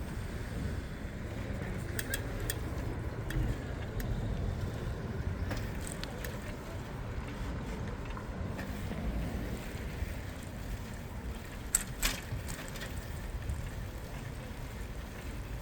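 Street ambience heard from a moving bicycle in city traffic: a steady low rumble, with a few sharp clicks, the loudest pair about twelve seconds in.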